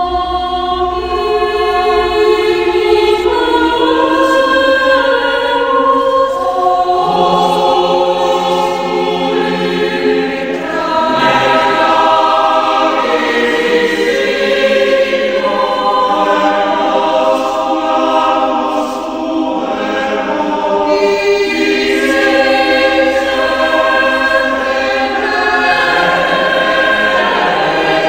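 Choral music: a choir singing slow, long-held chords that change every few seconds.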